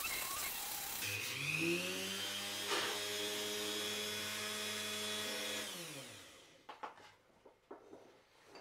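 Small electric rotary carving tool with a disc grinding bark off a wooden branch. About a second in it speeds up to a steady whine, then spins down and stops about six seconds in, followed by a few faint knocks of handling.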